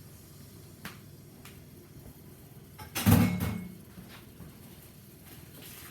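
Kitchen handling noises: two light clicks, then a louder knock with a deep thud about three seconds in that dies away within half a second.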